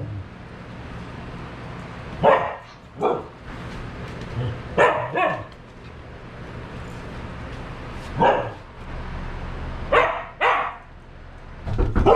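Dog barking in short single barks, mostly in pairs about half a second apart, seven in all, over a steady low hum.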